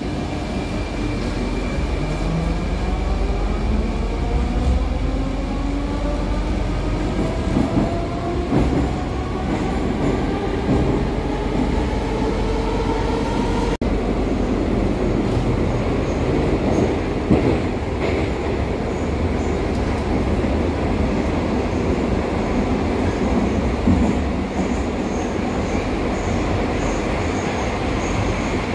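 Moscow metro train heard from inside the carriage: the traction motors whine in several tones rising together as the train accelerates over the first dozen or so seconds, then the steady running rumble and rattle of the car on the rails.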